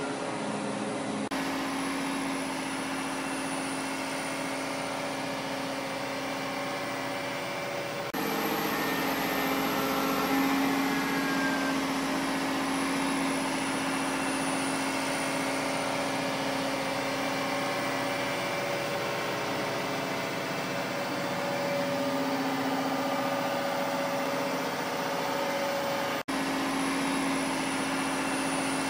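Heavy vehicle engine running steadily with a low hum, an added sound effect with abrupt cuts between clips about a second in, about eight seconds in and near the end. After each cut a faint high whine slowly falls in pitch.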